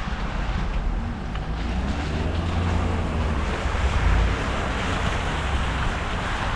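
Wind rumbling on the microphone over steady street traffic noise, with a vehicle engine faintly audible about two seconds in.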